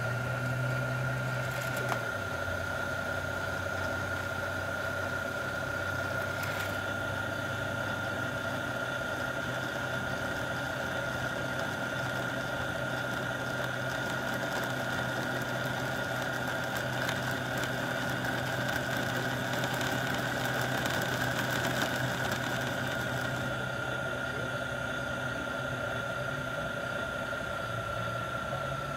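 Electric model train motor running as a diesel locomotive slowly hauls a Lionel crane car along the track: a steady high whine over a low hum.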